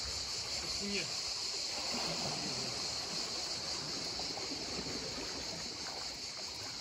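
Insects buzzing in a steady high-pitched drone, over small waves lapping among the shore rocks.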